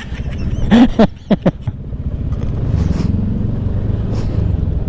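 Motorcycle engine running steadily on a steep dirt trail. A few short voice sounds come about a second in.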